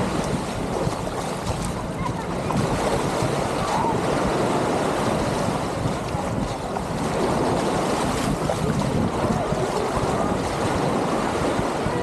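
Small waves washing onto a sandy shore, with wind buffeting the microphone and the distant chatter and calls of a crowded beach.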